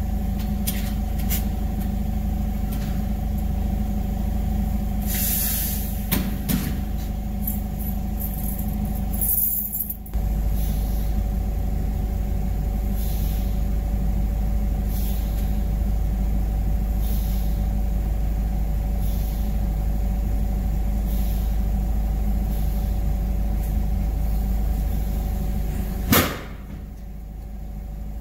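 Forklift running, heard from the driver's seat: a steady low hum with a few held tones and scattered clicks and rattles. The hum dips briefly a third of the way in, and near the end a sharp knock is followed by a quieter hum.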